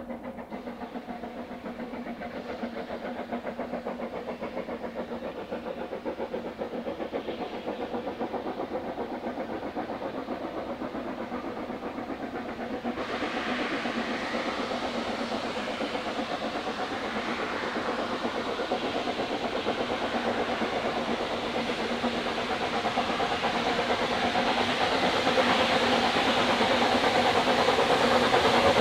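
Narrow-gauge steam locomotive working out of sight, its rapid exhaust beats growing steadily louder as it approaches.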